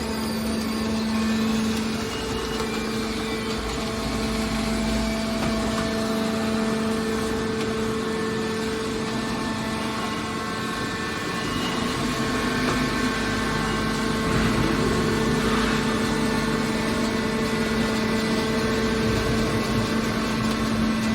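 Hydraulic scrap-metal baler running, its electric motor and hydraulic pump giving a steady hum that grows a little louder about halfway through.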